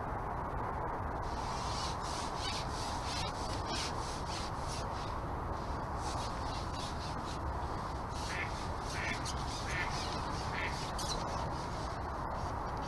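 A steady rushing outdoor background with light scattered ticks, and four short animal calls, evenly spaced, from about eight seconds in.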